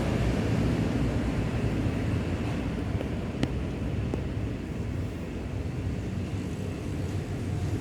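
Roadside traffic: a steady low rumble of vehicle engines and tyres passing, easing a little midway and building again near the end, with one sharp click about three and a half seconds in.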